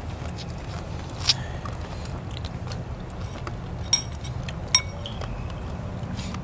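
Crisp bites and crunches of a crunchy snack being eaten: scattered sharp cracks, three louder than the rest, over a steady low hum.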